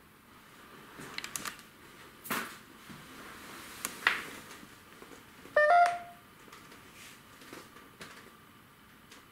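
Scattered soft clicks and knocks, then a short electronic beep about halfway through, made of a few quick stacked tones lasting about half a second; the beep is the loudest sound.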